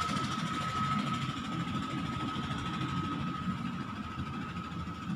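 Steady low background rumble with a thin, steady high whine running through it.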